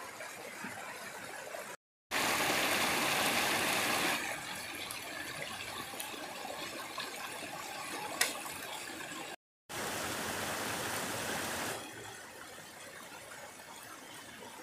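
Rocky forest stream rushing over stones: a steady wash of water that cuts out briefly twice and comes back louder each time. A single sharp click sounds about eight seconds in.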